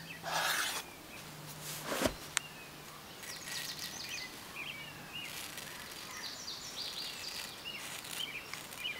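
Freshly sharpened parang blade shaving hair off a forearm as a test of its edge: faint, dry crackling in short runs. It follows a brief stroke of the blade across a field sharpener at the start and a single soft knock about two seconds in.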